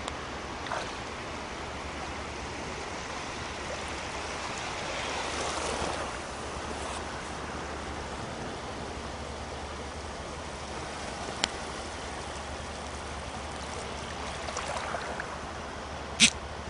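Small sea waves breaking and washing over shallow water at the shore, a steady wash of surf that swells for a couple of seconds about five seconds in. Two short sharp clicks cut through it, the louder one near the end.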